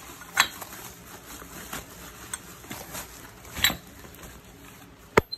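Clear plastic bags rustling and crinkling as wrapped parts are handled, with two louder crackles and a sharp click near the end.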